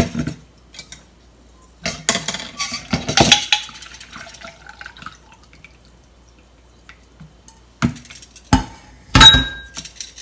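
A metal saucepan and a stainless mesh sieve clattering as matcha-milk mixture is poured through the sieve into a bowl, with a faint trickle of liquid. Near the end come three sharp metal knocks, the last and loudest of them ringing.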